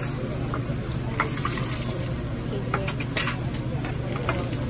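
Deep-frying at a scallion-pancake stall: a steady sizzle of hot oil, with a scatter of sharp clicks from metal tongs against the wire rack and fryer, over a low steady hum.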